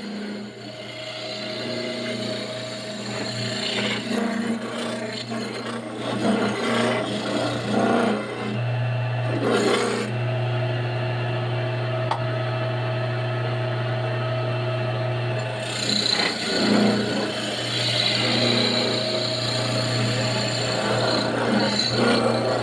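Electric coconut grater running: its motor hums steadily while a coconut half is pressed against the spinning serrated grating head, giving a rough rasping scrape that swells and eases as the coconut is pushed on.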